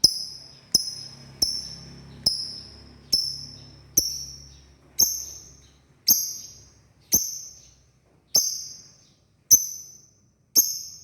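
Male lovebird calling for a female: a series of about a dozen sharp, high-pitched chirps, each starting suddenly and fading, spaced roughly a second apart with the gaps slowly lengthening.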